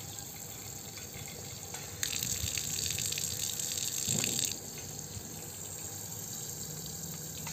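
Water running from a stainless-steel Kamal spray faucet head and splashing onto concrete. About two seconds in, the hiss turns suddenly louder and brighter as the head is switched from shower spray to a single solid stream. At about four and a half seconds it drops back to the softer spray.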